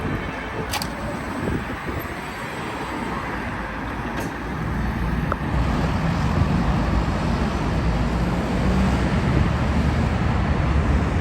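Wright Gemini 2 hybrid double-decker bus running along the road with traffic noise; its low rumble grows louder about five seconds in. A short click comes about a second in.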